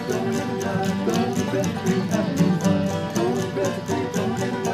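Background bluegrass music with plucked banjo and guitar over a steady beat.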